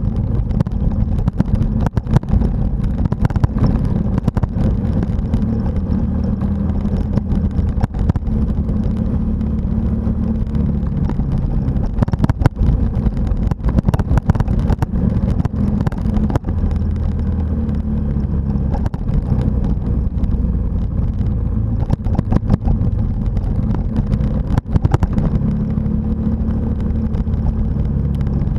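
Motorcycle engine running steadily on a dirt road, its pitch shifting a little with the throttle, with frequent short knocks and rattles over the top.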